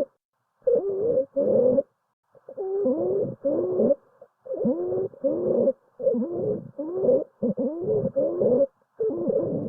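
Stethoscope recording of musical, pitched breath sounds in short bursts of about half a second, mostly in pairs with brief gaps, each gliding in pitch: adventitious lung sounds, a sign of narrowed airways.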